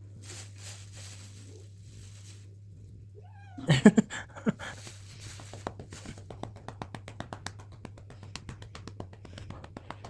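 A cat meows about four seconds in, the loudest sound here. After that a hand pats the cat's rump in quick, even slaps, about five a second, over a faint steady low hum.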